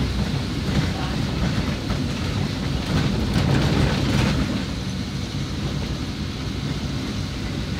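Steady low rumble of a vehicle driving over a rough, unsealed dirt road: engine and tyre noise, with a stretch of rattling and knocking near the middle.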